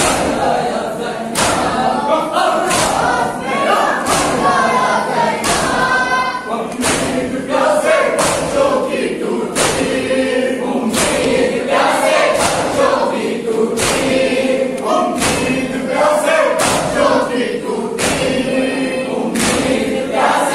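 A crowd of men chanting a noha together while beating their chests with open palms (matam); the loud slaps fall in a steady beat, a little over one a second, in time with the chant.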